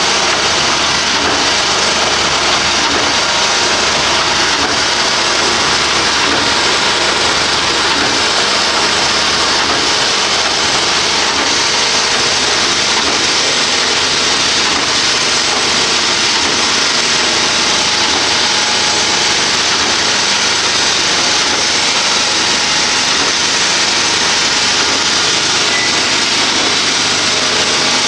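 DVBS-05.1 twin-shaft concrete mixer, 14 kW electric drive, running with its paddle shafts turning through the mix in the trough. A steady, loud mechanical noise.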